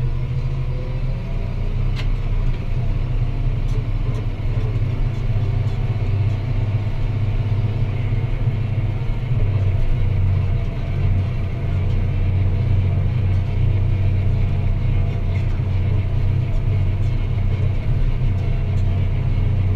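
Deutz-Fahr Agrotron 165 MK3 tractor's six-cylinder diesel engine running steadily while ploughing, its low engine note growing stronger about halfway through.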